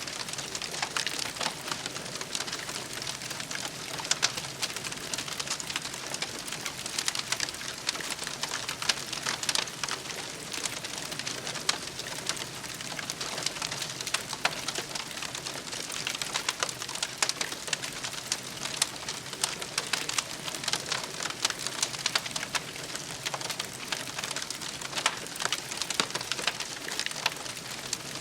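Campfire crackling steadily: many small irregular pops over a continuous hiss.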